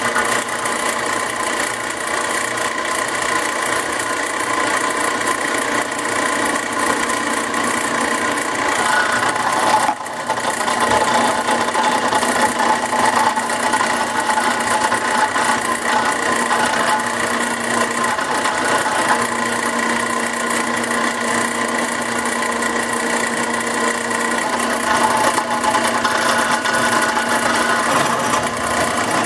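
Drill press running steadily while its bit cuts holes in quarter-inch steel plate, a constant motor and cutting whine, with one short break about ten seconds in.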